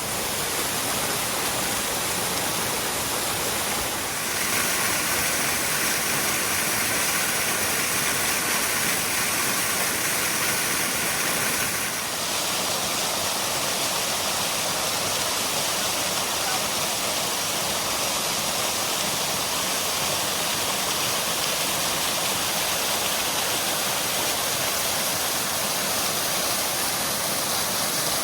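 Dark Hollow Falls, a cascading mountain waterfall, rushing steadily. Its tone shifts slightly about four seconds in and again about twelve seconds in.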